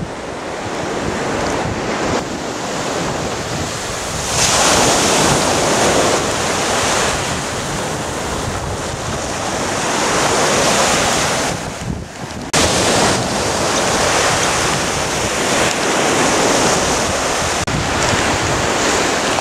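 Ocean surf breaking on a beach, its wash swelling and easing, with wind buffeting the microphone.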